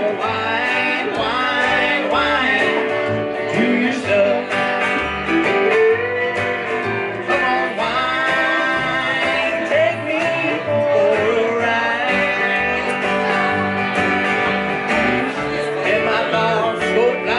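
Live country band playing: electric guitar, plucked upright double bass and strummed acoustic guitar together, with notes bending in pitch over a walking low bass line.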